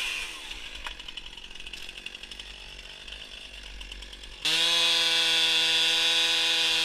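Chainsaw engine winding down at the start, then a quieter lull of faint low noise. About four and a half seconds in, the chainsaw cuts back in abruptly and runs at a steady high speed.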